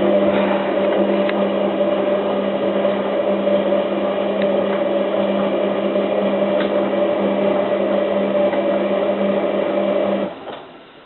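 Hotpoint 9534A washing machine's motor turning the drum during the boil wash: a steady electric motor hum that cuts off suddenly about ten seconds in as the drum pauses between turns.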